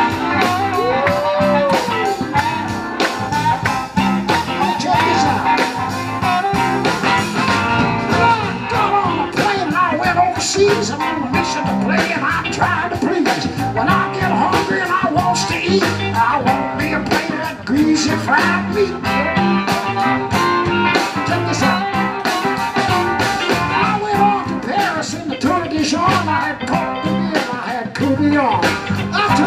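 Live blues band playing an instrumental passage with no vocals, electric guitar out front over a steady beat.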